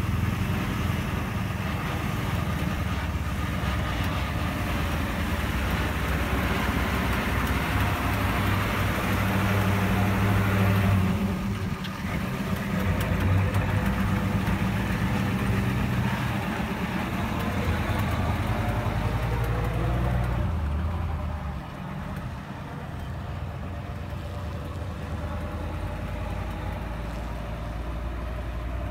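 Monster truck's engine running as the truck drives slowly past, louder for a few seconds, then dropping and running lower as it pulls away down the dirt track.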